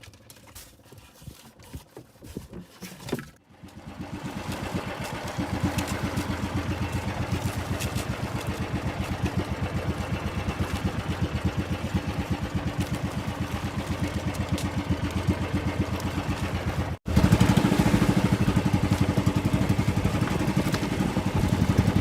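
Small fishing boat's engine starting up about three and a half seconds in and then running steadily with an even, regular putter. About seventeen seconds in it suddenly becomes louder.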